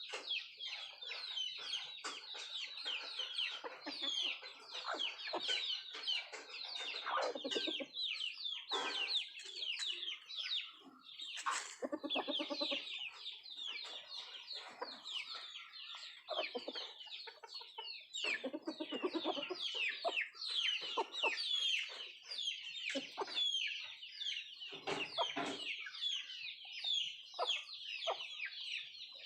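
Indian country chickens (nattu kozhi) clucking, with a few lower, longer clucks standing out now and then over a constant chatter of high, quick chirps.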